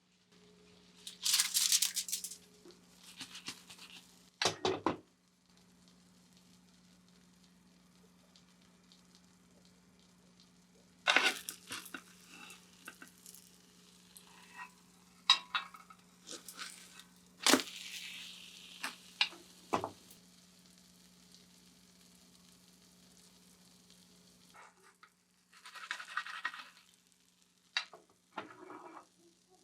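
Food being cooked: a steady low hum that cuts off about three-quarters of the way through, with scattered clattering, scraping and light sizzling sounds.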